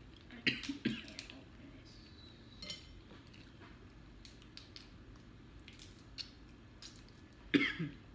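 Boiled crab legs and shrimp being cracked and peeled by hand: scattered small snaps and crackles of shell, with the loudest ones about half a second in, just under a second in, and near the end.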